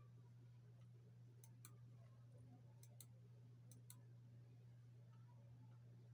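Three quick double clicks of a Fujitsu laptop's touchpad buttons, each a press and release, about 1.5, 3 and 4 seconds in, over a faint steady low hum.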